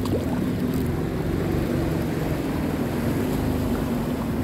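Yamaha jet ski engine running steadily at low throttle as the craft moves off through calm water.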